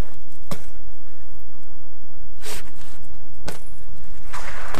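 Steady wind rumble on the microphone of a moving follow camera, with a few sharp clacks from a BMX bike and a short scraping rattle about four and a half seconds in.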